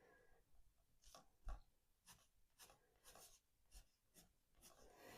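Faint, short scratchy strokes of a pen drawing on paper, a few separate strokes spread out, the loudest about one and a half seconds in.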